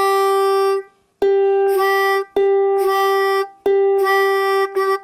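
Tuning a ukulele's fourth string to G against a pitch pipe: the same G note sounds again and again, each held for about a second.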